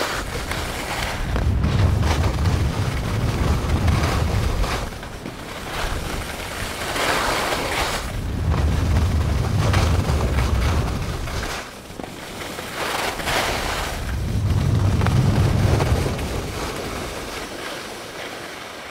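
Skis hissing and scraping over groomed, packed snow during a descent, with wind buffeting the camera microphone in low rumbling gusts. The sound swells and fades several times.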